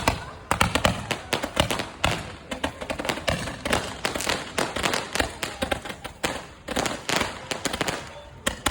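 888-shot Gatling firework cake firing a rapid, continuous string of sharp cracking shots, several a second, with a short lull near the end.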